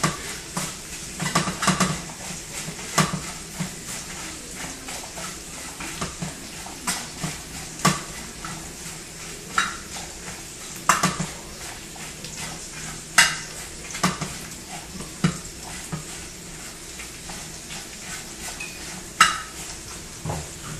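Metal tongs clicking and scraping against a small stovetop grill rack as dried chiles are turned over and over while they toast. The clanks come irregularly, a few every couple of seconds, over a steady faint hiss.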